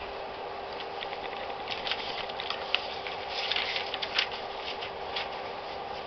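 Packaging handled by hand: light, irregular rustling and crinkling with a few sharper crackles in the middle, over a steady background hum.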